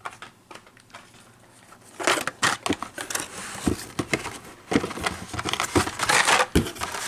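Plastic blister packs on cardboard backing cards crinkling and clacking as carded Hot Wheels die-cast cars are handled and pulled from a cardboard case. The handling starts about two seconds in, with a few dull knocks among the crackle.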